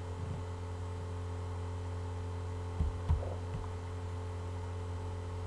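Steady low electrical hum, like mains hum picked up in the recording, with two faint low thumps about three seconds in.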